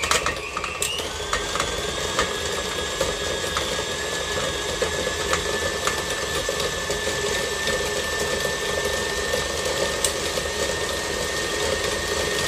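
Stand mixer running with a steady motor whine as its beater creams a stick of butter in a stainless steel bowl; about a second in it steps up to a higher speed and the whine rises in pitch, then holds.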